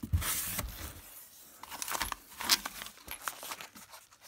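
Packaging rustling and crinkling as items are handled in a cardboard shipping box, including a padded mailer. A loud burst of rustling comes at the start, then scattered crackles, with a sharp one about two and a half seconds in.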